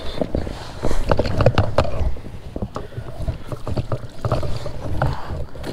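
Irregular knocks and clunks of an angler moving about in a fishing kayak, over a low rumble of handling noise.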